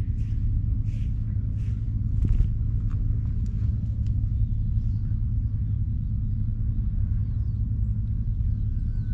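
Steady low outdoor rumble, with a few evenly spaced hissing pulses in the first two seconds and faint chirps.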